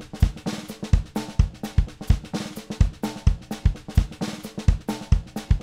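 Drum kit playing a steady jazz-rock groove: regular bass drum and snare hits with hi-hat between them.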